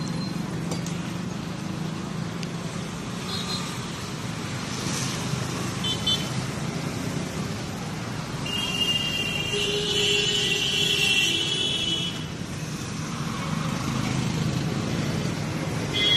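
Street traffic running steadily, with vehicle horns: short toots now and then and one longer, louder honk a little past the middle.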